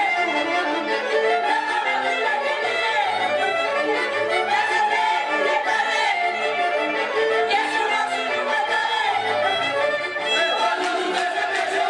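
Romanian traditional dance tune led by a fiddle playing a running melody over a steady accompaniment.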